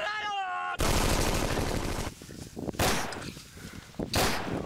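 A short cry, then a burst of machine-gun fire lasting over a second, followed by two single gunshots about a second and a half apart.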